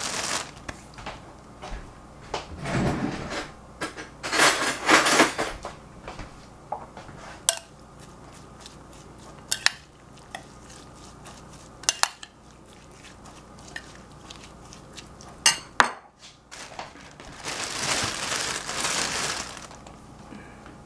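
Metal spoon stirring and scraping in a ceramic bowl, with several sharp clinks scattered through.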